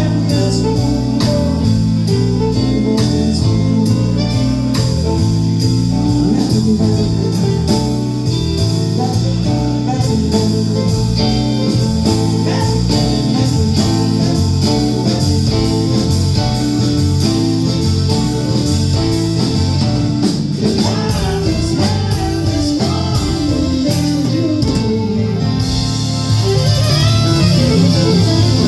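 Live band playing, with guitar over a bass line and a steady drum beat; it gets a little louder near the end.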